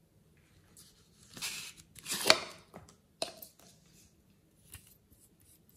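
Close-up handling noises: a couple of short scraping rustles, the loudest about two seconds in, then a sharp click and a few faint ticks as a small plastic tube is picked up and handled.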